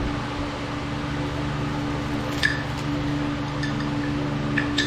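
A few light metallic clinks as new brake pads with metal wear-indicator tabs are handled, heard over a steady background hum.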